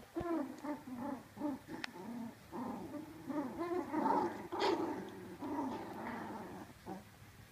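Puppies play-growling while they wrestle, a busy string of short growls and grunts that rise and fall and break off again and again. A sharper, louder cry stands out about four and a half seconds in.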